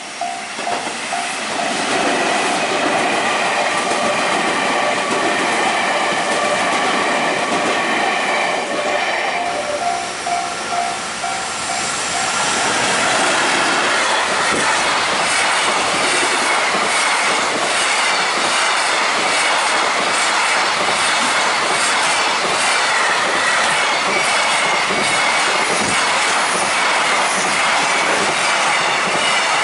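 A level-crossing bell dings steadily while an electric train runs past with a whine. About twelve seconds in, a container freight train passes close by, and from then on its wheels clatter rhythmically over rail joints with some squeal.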